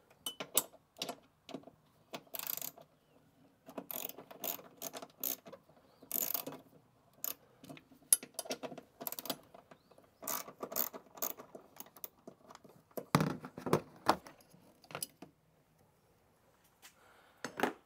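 Hand ratchet with a 10 mm socket clicking in quick runs as two bolts are unscrewed; the clicking dies away a couple of seconds before the end.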